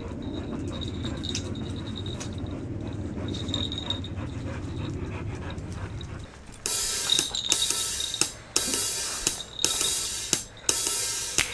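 A PeppyPup battery-powered walking toy dog's motor and gears clicking and whirring as it is led along. About seven seconds in, louder music with drums and cymbals starts and takes over.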